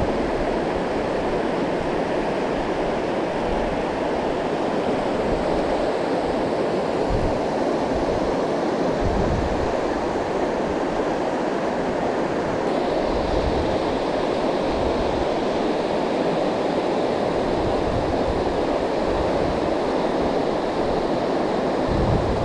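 Steady rush of a shallow river riffle, fast water pouring in small white rapids over a rock ledge.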